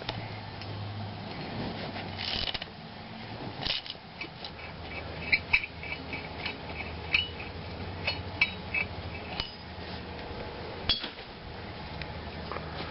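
Light metallic clinks and clicks from a 17 mm wrench and loosened bolts as the six bolts holding the brake disc (rotor) to the hub are backed out. There are a few knocks in the first four seconds, a cluster of ringing clicks through the middle, and another knock near the end.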